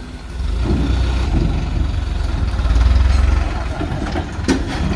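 Engine of the sand delivery truck running at idle, a steady low rumble that swells a little about three seconds in.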